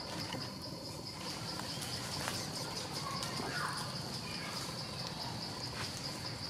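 Steady, high, pulsing trill of forest insects, with a faint short chirp about halfway through.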